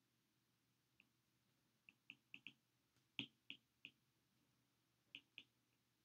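Faint, separate clicks of a stylus tip tapping on a tablet's glass screen as words are handwritten, about ten taps in uneven groups of two or three.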